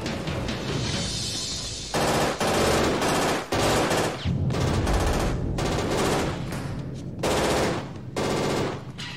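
Long bursts of automatic gunfire, several in a row, starting about two seconds in and broken by short pauses.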